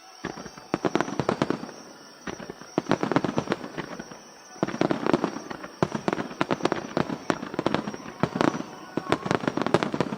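Large fireworks starmine firing rapid volleys of aerial shell bursts: dense clusters of sharp cracks in three waves, with short lulls about two and four and a half seconds in.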